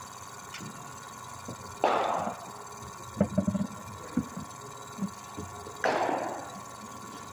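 Cricket bowling machine session: two sharp ball impacts about four seconds apart, each trailing off over about half a second. A steady hum runs underneath, with a few faint knocks in between.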